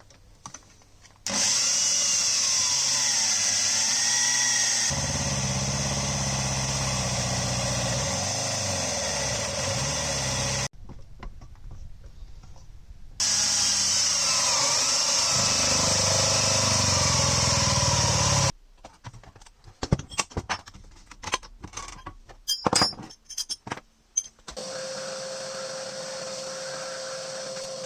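Handheld power tool running steadily in two long stretches, separated by a short quiet gap. Then come scattered clicks and knocks, then a steady hum.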